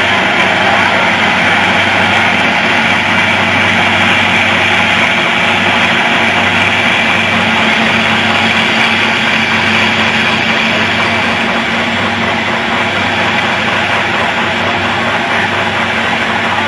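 Vintage farm tractor engine running steadily under load as it pulls a weighted pulling sled.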